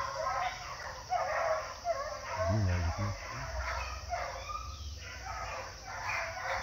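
Pack of hunting hounds baying on a paca's trail: overlapping drawn-out howling cries that rise and fall, with no pause.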